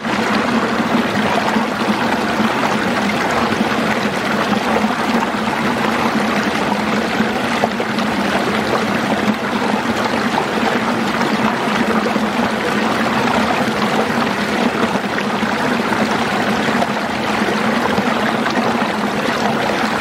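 Mountain stream pouring steadily over a small cascade between rocks, a loud continuous rush of water.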